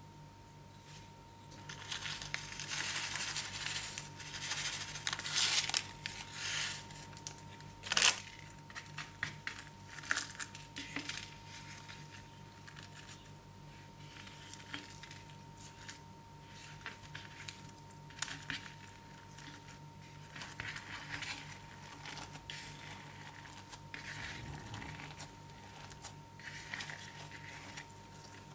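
Crunchy slime being squeezed and worked by hand, giving irregular crackling and crinkling, with one sharp click about eight seconds in. A faint steady high whine runs underneath.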